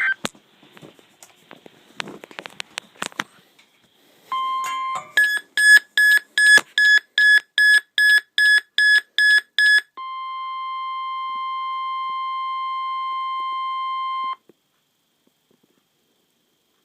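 NOAA Weather Radio test broadcast heard through a receiver. It opens with faint crackle and clicks and a short steady tone, then about a dozen quick, evenly spaced high beeps. The warning alarm tone follows, held steady for about four seconds before cutting off abruptly.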